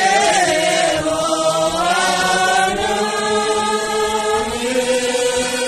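A group of men and women singing a slow traditional Sherpa song together in unison, with long held notes that glide slowly up and down.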